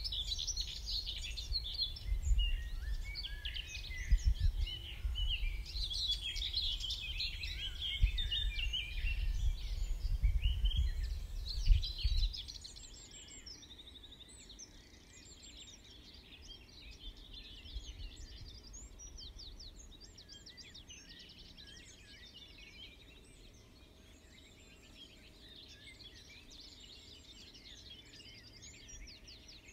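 Dawn chorus: many songbirds singing at once, with quick overlapping notes throughout. For about the first twelve seconds a low, gusty rumble of wind on the microphone runs under the birdsong. After that the chorus goes on alone and quieter.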